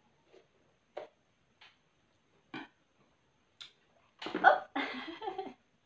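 Faint, sparse clicks as a green bell pepper is cut. About four seconds in comes a louder, rough crackling lasting over a second, as the crisp pepper is pulled apart into halves.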